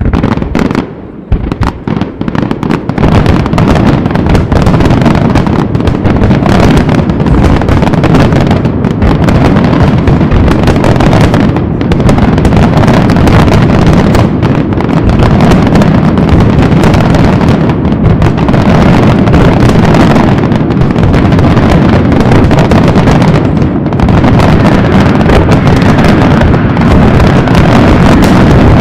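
Fireworks display: a loud, dense barrage of bangs and crackling shell bursts that starts suddenly and goes on without a break.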